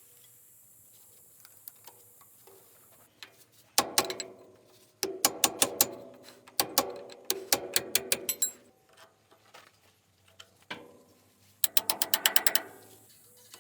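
Ratchet wrench clicking in four short bursts of rapid, sharp clicks, with pauses between them.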